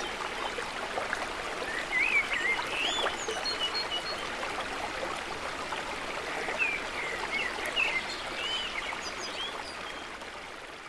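Small woodland stream pouring over rocks in little cascades, a steady rush of water, with a bird singing short warbling phrases twice over it. The sound fades out near the end.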